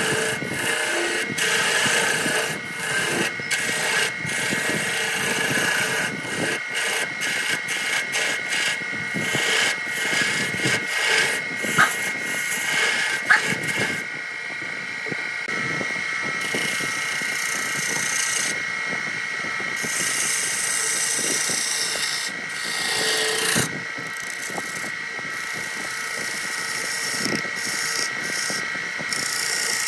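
Wood lathe running with a steady motor whine while a hand-held turning tool scrapes and cuts the spinning wood, an irregular rasping as shavings come off. A couple of sharper catches stand out about twelve seconds in.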